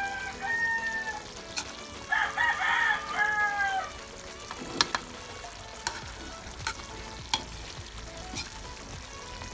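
A rooster crowing in the first few seconds, its calls falling in pitch at the end. Then a metal ladle clinks against the metal wok about five times as it stirs the simmering chicken curry.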